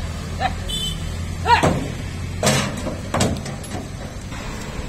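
Several sharp knocks and bangs, roughly a second apart, over a steady low hum, with two short rising-and-falling calls in the first two seconds.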